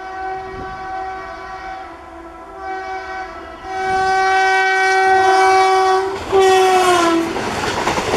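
Indian electric locomotive's air horn sounding in several long blasts. Its pitch drops as the locomotive passes, about six seconds in, and then comes the loud rush and clatter of passenger coaches going by.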